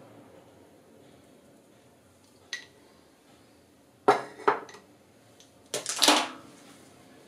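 A set of plastic measuring spoons clacking and clattering as they are handled and set down on a tiled countertop. There is a light click, then two sharp clacks about half a second apart, then a louder clatter about six seconds in.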